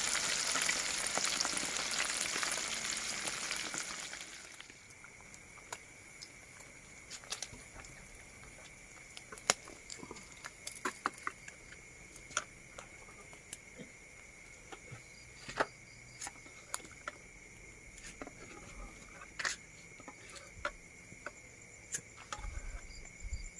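Fish frying in hot oil: a steady sizzle for about the first four seconds, which then drops away to a quiet spell of scattered pops and clicks. A thin, steady high-pitched insect trill runs underneath.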